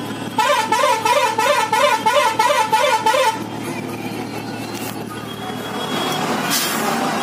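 A warbling vehicle horn sounds for about three seconds, its pitch going up and down about three times a second, then cuts off suddenly. Engine and traffic noise runs underneath and grows louder near the end.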